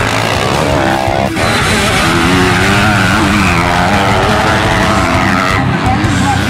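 Motocross bike engines revving up and down, their pitch rising and falling, mixed with background music.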